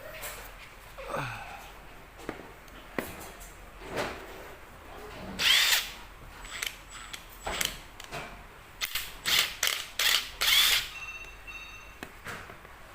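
Makita DTW1001 18V brushless cordless 3/4-inch impact wrench run in a series of short trigger bursts, the longest and loudest about five and a half seconds in, with a quick cluster of shorter bursts a few seconds later.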